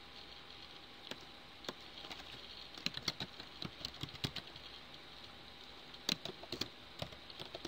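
Computer keyboard being typed on in two quick runs of faint key clicks, about three seconds in and again about six seconds in, over a steady background hiss.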